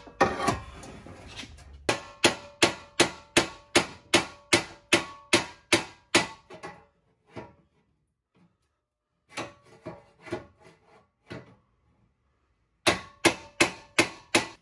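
Hammer blows on a truck's steel front cross member, beating back a cut section of it. The blows come in a fast, even run of about four a second, then a few scattered lighter hits, then another quick run near the end, and the metal rings with each hit.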